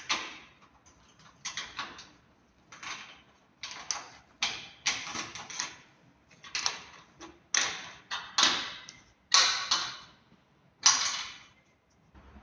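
Irregular sharp clacks and knocks, about one or two a second with short decays: metal mounting hardware being handled and fastened as solar panels are fixed onto their racks.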